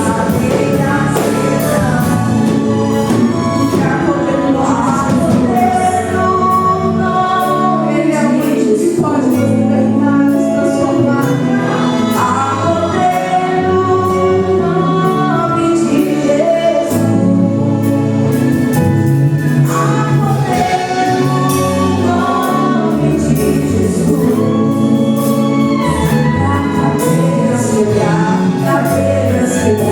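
Gospel worship song with several voices singing together over a band, with a steady drum beat.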